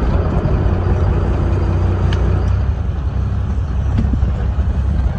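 Fishing boat's engine running with a steady low rumble.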